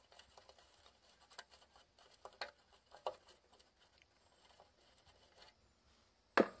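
Hand nut driver working the nut off a condenser fan blade's motor shaft: faint, irregular small clicks and scrapes of metal on metal. A single sharper knock near the end.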